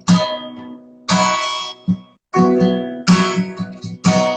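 Acoustic guitar strumming chords, about one a second, each chord ringing out and fading before the next.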